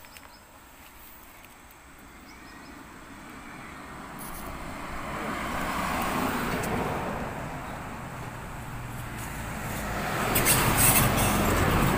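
Road vehicles passing: a wide hiss of tyres and engine noise that swells to a peak about halfway through, eases off, then rises again near the end.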